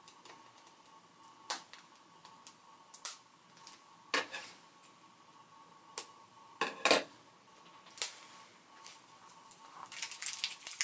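Plastic shrink-wrap on a squishy toy's container crinkling and scissors snipping as it is cut open: scattered sharp clicks and crackles, with a pair of snips about seven seconds in and denser crinkling near the end.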